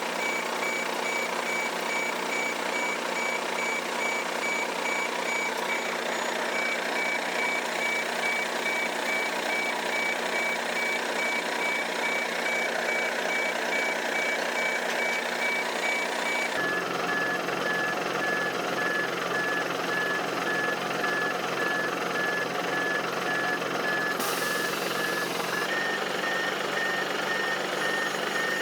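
Steady machine noise with a repeating high electronic beep, like a warning or reversing alarm. The sound changes abruptly twice, about two-thirds of the way through and again near the end.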